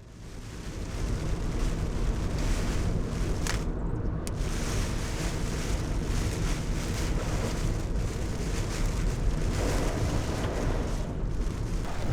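Typhoon wind and rain, with gusts buffeting the microphone into a heavy, steady rumble. It fades in over about the first second.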